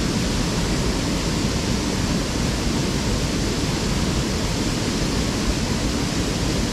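Steady rush of flowing river water, an even noise with no distinct events.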